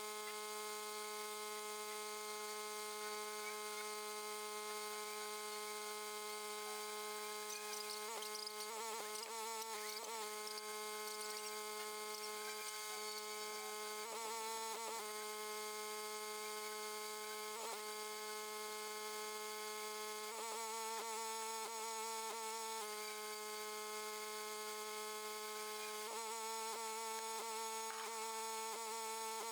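Pressure washer running steadily while driving a rotary surface cleaner across a wooden deck: a constant whine that wavers briefly in pitch a few times.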